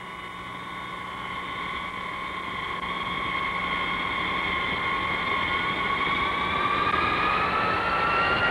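Boeing 707-123 turbojet engine starting up: a steady whine that rises in pitch and grows louder from about halfway through as the engine spools up.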